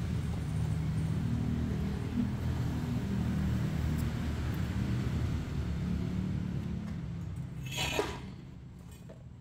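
Arc welding on a steel car exhaust pipe: a steady crackling hiss over a low hum. The sound stops about eight seconds in with a short metallic clank as the pipe is handled.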